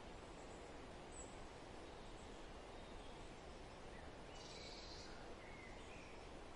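Faint outdoor ambience: a steady low hiss of background noise with a few faint, short bird chirps, the clearest about four and a half seconds in.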